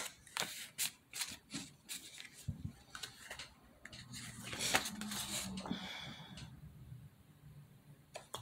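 A run of sharp clicks and light clattering from objects being handled, dying away about six seconds in.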